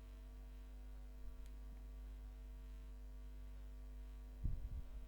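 Steady electrical mains hum in the recording, with a brief low thump about four and a half seconds in.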